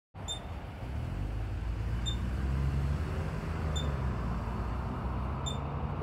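A ground squirrel giving its alarm call: four short, high, identical beeps evenly spaced about every second and a half to two seconds, much like a smoke detector's low-battery chirp. A steady low rumble lies underneath.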